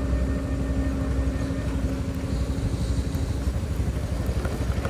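Vehicle engine running steadily while under way, over a constant low rumble; a steady engine tone fades about three and a half seconds in.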